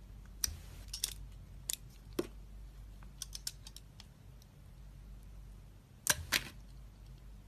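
Blade cutting into a bar of soap: a series of crisp clicks and short scrapes, irregularly spaced, with the loudest two close together about six seconds in.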